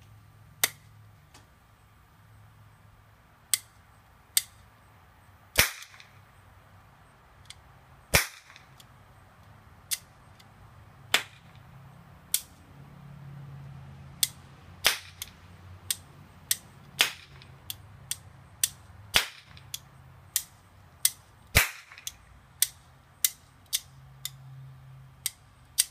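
Small red toy cap gun firing caps: about thirty sharp cracks, a few seconds apart at first, then coming faster, about two a second, from about fifteen seconds in.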